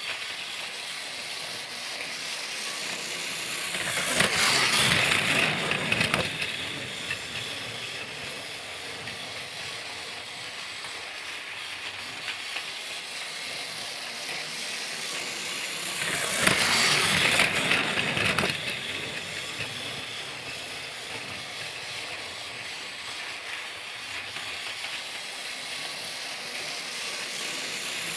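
Motorised Thomas the Tank Engine toy train running: a steady whirring hiss that swells louder twice, about four seconds and about sixteen seconds in, each time for about two seconds.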